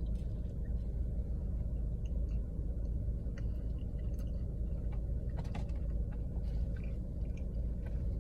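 Close-up chewing and biting of fast food, with scattered small wet clicks and smacks, over a steady low hum.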